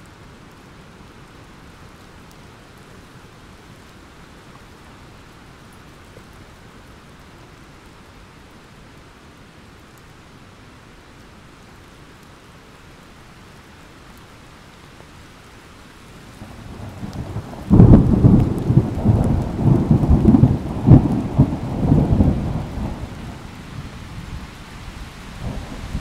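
Thunderstorm: steady rain, then about two-thirds of the way in a clap of thunder. A rumble builds, breaks suddenly into loud rolling booms for several seconds, and dies away into a low rumble under the rain.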